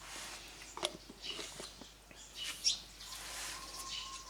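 Birds chirping: a few short, quick chirps over faint background hiss. About three seconds in, a thin steady tone begins and holds.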